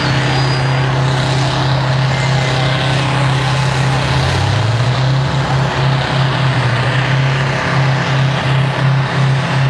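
Steady engine noise with a strong low hum. A second, lower tone comes in about four seconds in and rises, and the hum flutters briefly several times after that.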